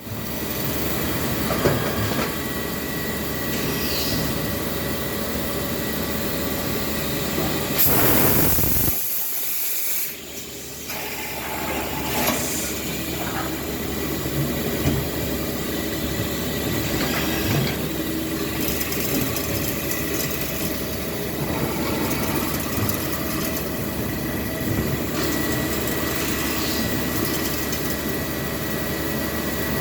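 Okuma Macturn 30 CNC lathe running: a steady mechanical hiss with a faint steady whine, and a louder rush of noise about eight seconds in.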